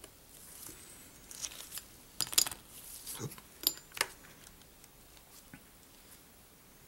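Steel tweezers and small watch parts clicking and clinking as the retaining ring is worked free and the Omega caliber 600 movement is taken out of its case: a few sharp little metal clicks between about one and a half and four seconds in, the sharpest about two and a half seconds in.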